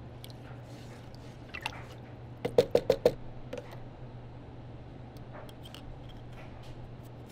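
Hard plastic pieces clicking as they are handled: a quick run of about five sharp clicks a little under three seconds in, with a few softer ticks around it, over a steady low hum.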